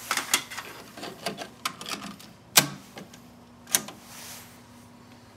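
Cassette handled and loaded into a Marantz 5220 cassette deck: a quick run of small plastic clicks and rattles, then two loud mechanical clunks a little over a second apart as the cassette door and the piano-key transport buttons are worked.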